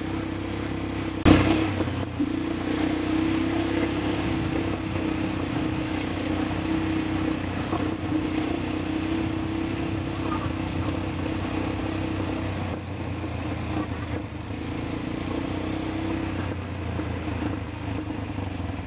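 Quad bike (ATV) engines running steadily while riding along, with a sharp thump about a second in.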